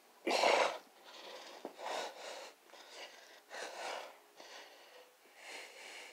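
A person breathing hard through push-ups: a loud exhale about half a second in, then several more noisy breaths about a second apart.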